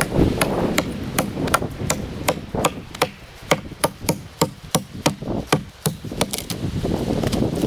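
Rapid, regular knocking strikes, about three a second, with a low rumble underneath during the first half.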